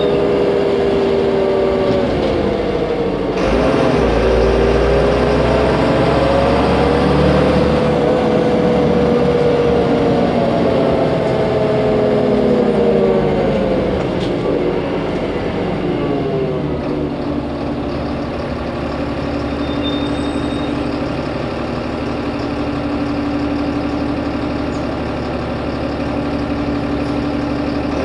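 Solaris Urbino 15 city bus heard from on board: engine and drivetrain running under way, with a pitch that rises and falls as the bus speeds up and slows. About two-thirds of the way through, the pitch drops and then holds steady at a lower, slightly quieter note.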